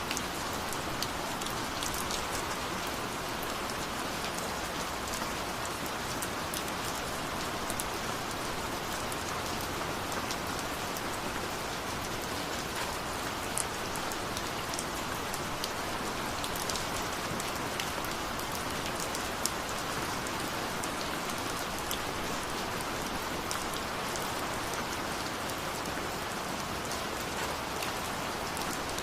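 Steady rainfall hissing evenly, with scattered individual drops ticking sharply on a surface.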